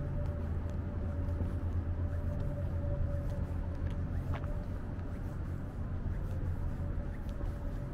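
Steady low rumble of city traffic and ambient urban hum, with a faint steady tone running through it and a few faint ticks.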